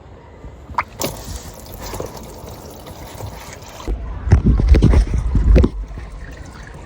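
Engine oil pouring out of the open sump drain hole and trickling and splashing below, with a louder rumbling stretch about four seconds in.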